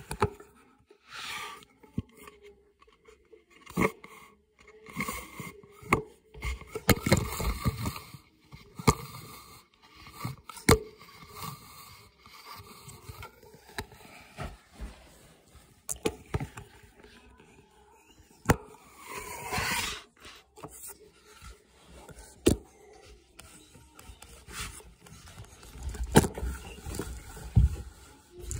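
Phone handling noise: the microphone rubs and scrapes against fabric and fingers, with scattered knocks and clicks as the phone is moved about.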